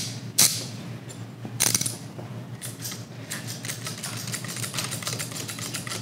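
Ratcheting cable cutter clicking as its handle is pumped to close the jaws onto a 2/0 battery cable: a couple of single clicks, then a quick, even run of ratchet clicks from about two and a half seconds in.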